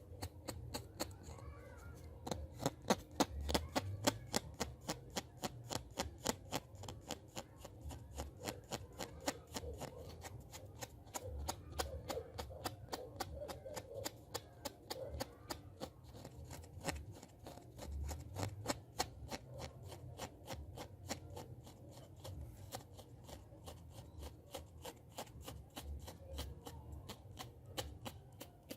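ASMR hand sounds: a long, steady run of quick, crisp clicks and taps from the hands, several a second, close to the microphone.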